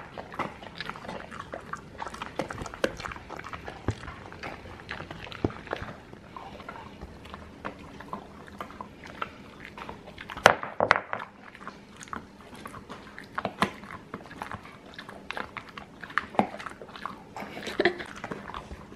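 Siberian husky chewing an alligator-shaped chew treat: irregular crunching and gnawing, with the loudest crunch about halfway through.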